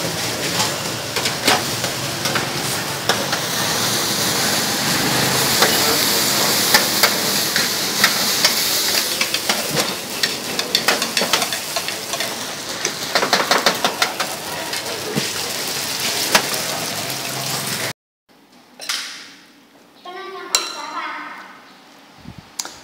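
Fried noodles sizzling on a flat griddle hot plate, with a metal spatula scraping and clattering against the steel as they are stir-fried. It cuts off suddenly about 18 s in, followed by a few fainter clinks.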